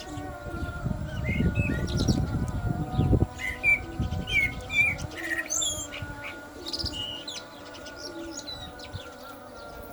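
A black songbird sings short whistled chirps and phrases every second or so. Behind it the call to prayer carries on one long held chanted note. A low rumble in the first few seconds cuts off suddenly.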